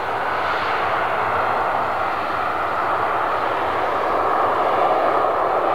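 Jet engines of an Air China Boeing 737-300 running as the airliner rolls along the runway: a steady, dense rushing roar that slowly grows louder.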